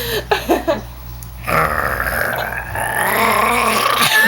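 A person making a long, rough, burp-like croak from the throat, starting about a second and a half in and held for about two and a half seconds. A few short vocal sounds come before it.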